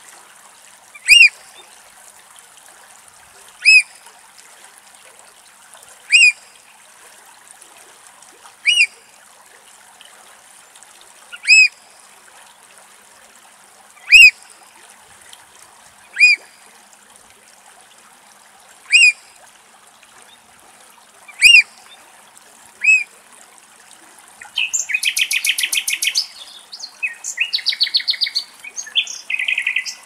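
Eurasian oystercatcher alarm calls: about ten loud single piping calls, one every two to three seconds. Near the end a rapid pulsing electronic jingle takes over.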